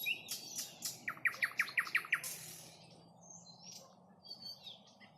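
Nightingale singing: sharp clicking notes, then a loud fast run of about eight repeated notes, ending in a harsh rasping note, followed by quieter, softer phrases.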